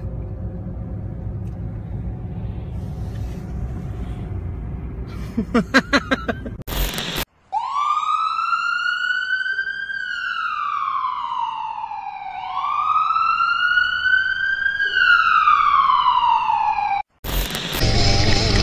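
A slow wailing siren rising and falling twice over about ten seconds, the loudest sound here. Before it comes a steady rumble of road noise from inside a moving car, and near the end a loud rushing noise of a motorcycle riding through heavy rain.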